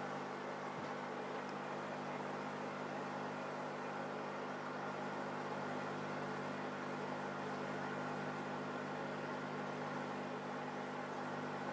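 Steady mechanical hum of aquarium equipment running: several low tones under an even hiss, with one faint low knock about a second in.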